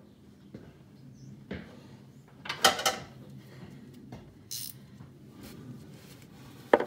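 Steel wrench and socket clinking and rattling on the oil filter adapter bolt of a Jeep XJ 4.0 engine, with a loud cluster of clinks about two and a half seconds in and a single sharp click near the end.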